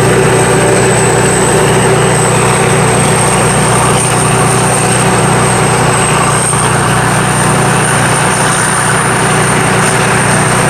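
Sakpattana SS-300 Black Bird rice combine harvester's five-cylinder 170 hp engine running steadily, a constant loud engine hum with a steady high-pitched whine above it.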